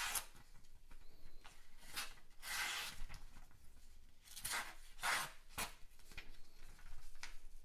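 Damascus sheepsfoot blade of a slip-joint folding knife slicing through magazine paper: several short, scratchy cutting strokes, one longer at about two and a half seconds, with paper rustling between them.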